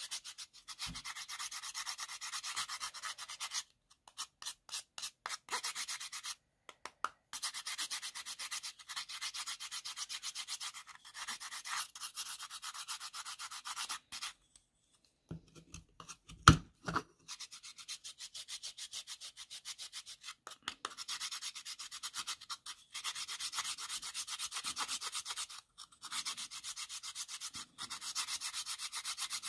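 A stick of pink chalk scraped back and forth on a fine metal hand grater, a rapid rasping rhythm of short strokes broken by a few brief pauses. A single sharp knock about halfway through is the loudest sound.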